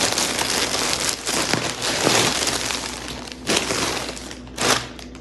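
Plastic packaging crinkling and rustling as a robe in a clear plastic bag is handled against a black plastic mailer bag, with two sharper crackles near the end.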